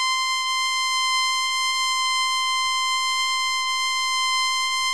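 A steady, high electronic beep tone held without a break, at an even level.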